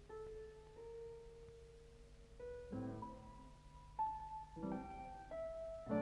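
Solo piano playing a slow, quiet melody of held single notes, with chords struck about three seconds in and again near the end.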